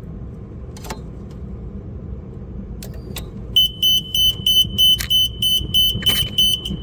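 A few sharp clicks, then the machine's control board beeping rapidly, about three short high beeps a second, for the last three seconds. The beeping is the controller rebooting, the sign that the 24 V control circuit is still shorted.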